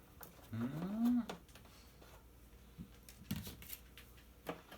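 Faint clicks and taps of small plastic vacuum-cleaner parts and screws being handled during disassembly, after a short vocal sound about half a second in whose pitch rises and then falls.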